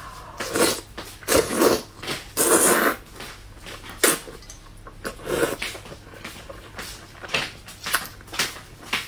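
Slurping and wet chewing of a soft, saucy braised eggplant: a string of short sucking slurps about once a second, the longest about three seconds in.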